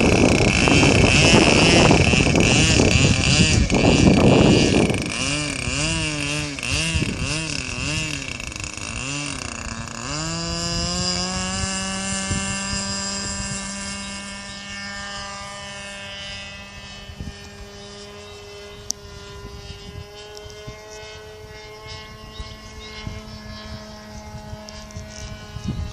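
Model airplane glow engine running. For the first five seconds wind buffets the microphone over the engine's high whine. The engine note then wavers up and down for several seconds before settling into a steady drone that slowly grows fainter.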